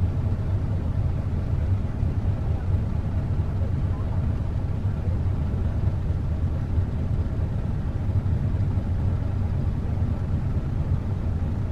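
Motorhome engine running with a steady low rumble.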